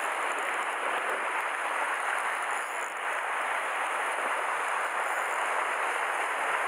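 Sea surf washing steadily against a rocky shore: a constant rushing hiss with no breaks.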